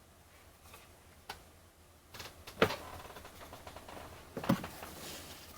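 Light handling noises: a few sharp clicks and knocks, the loudest about two and a half seconds in, over soft rustling.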